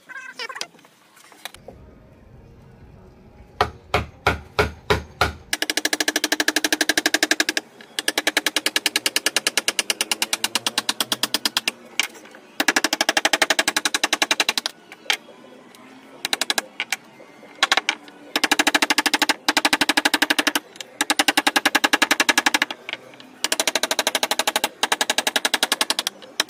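Hammer rapidly tapping a carving chisel into a teak panel: a few separate knocks, then runs of very fast, evenly spaced taps, each run lasting a second or two before it stops and starts again.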